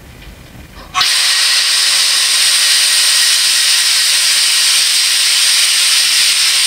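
Compressed air hissing steadily through the EWK oil extractor's air-driven vacuum pump, starting suddenly about a second in as the air valve is opened. The pump is drawing vacuum to suck engine oil out up the extraction hose.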